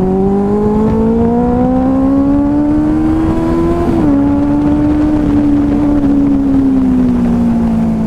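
Benelli 600i's 600 cc inline-four engine under hard acceleration, its note rising steadily for about four seconds. The note then drops slightly, holds, and slowly falls as the bike slows.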